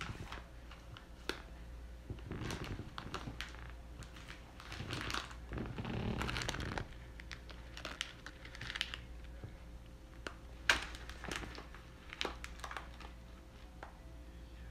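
Plastic packaging rustling and crinkling in irregular bursts as packs are handled and pulled from a shelf. A few sharp knocks come in among the rustling, the loudest a little past the middle.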